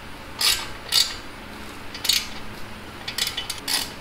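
Ratchet wrench tightening the brake caliper bolts, clicking in a series of short, irregular bursts as it is swung back and forth.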